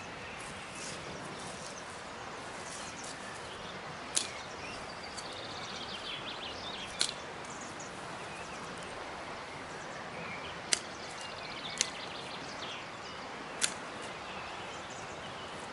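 Outdoor ambience: a steady background hiss with faint bird chirps and a handful of short, sharp ticks spread through it.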